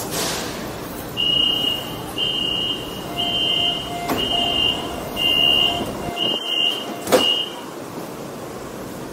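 Metro train's door-closing warning: about seven high beeps, roughly one a second, then the doors shut with a sharp knock about seven seconds in.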